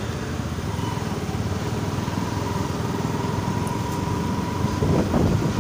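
Motorcycle engine running steadily at low riding speed, heard from the rider's seat, with a thin steady whine. Wind buffets the microphone more near the end.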